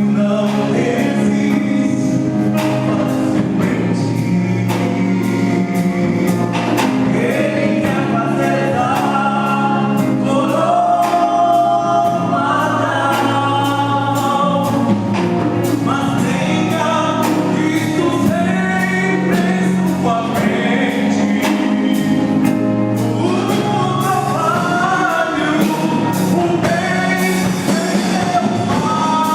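A Christian gospel song: several voices singing together over a band, with a steady drum beat.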